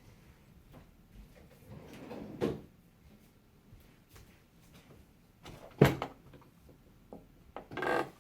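Handling noises from taking apart a desktop computer: scattered light clicks, a thump about two and a half seconds in, a sharp knock just before the six-second mark, and a short scraping clatter near the end.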